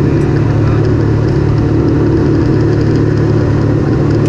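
Off-road vehicle's engine running at a steady pitch, neither revving up nor slowing.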